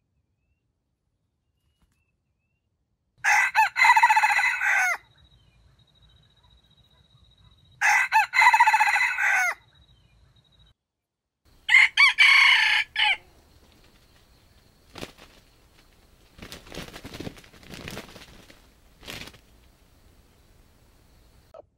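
Red junglefowl rooster crowing three times, about four seconds apart, each crow lasting under two seconds. Fainter, short sounds follow near the end.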